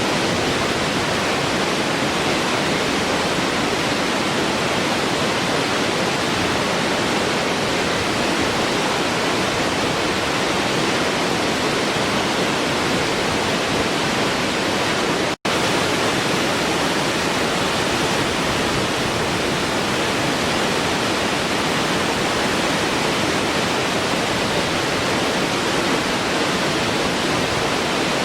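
Waterfall rushing in a steady, dense roar of falling water, unchanging throughout. About fifteen seconds in the sound cuts out for an instant and resumes, as at a loop splice.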